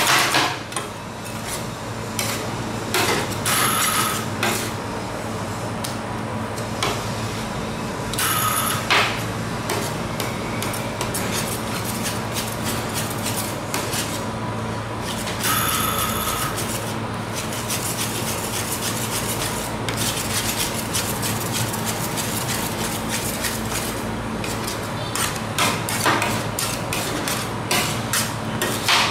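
Metal spatulas chopping and scraping ice cream mix on a frozen steel cold plate, with frequent sharp clinks and taps of the blades on the metal, over a steady machine hum.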